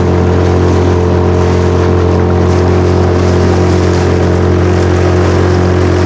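Honda 2.3 hp four-stroke outboard motor running at a steady speed, driving a small boat across choppy water.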